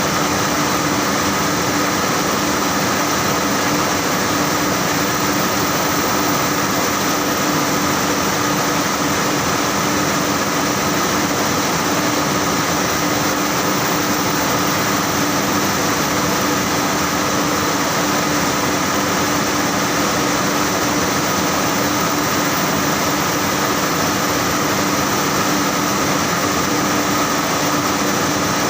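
Saurer JSC 330 textile carding machine running steadily: a continuous mechanical whir and hiss with steady humming tones, unchanging throughout.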